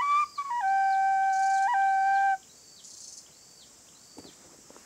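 Khlui (Thai bamboo flute) playing the last phrase of a tune: a short rising turn, then a long held note with one quick flick upward, stopping about halfway through. Faint high chirping continues after it.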